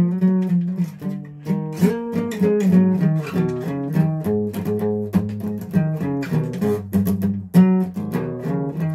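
Guitar being played: a continuous run of plucked notes and chords, several notes a second, with a strong bass line under the melody.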